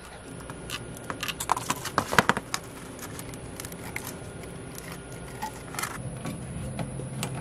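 Small plastic clicks and taps from PVC plumbing fittings being handled and pushed together, with a quick flurry of sharper clicks about two seconds in. A low steady engine hum comes in near the end.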